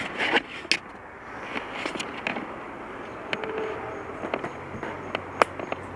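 Scattered clicks and light knocks over a steady hiss: handling noise as things are picked up and moved about, with one sharper click about five and a half seconds in.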